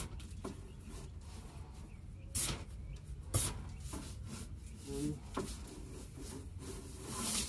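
Paint spray gun hissing in a few short bursts as primer is sprayed onto cabinets.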